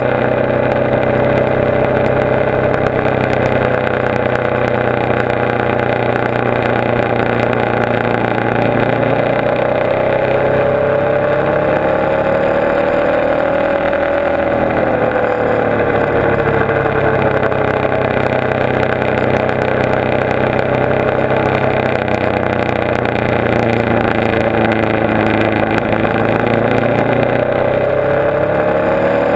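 Motorcycle engine running under way at speed over a steady rush of wind and road noise. The engine pitch climbs slowly until about halfway, drops, then climbs again near the end as the throttle changes.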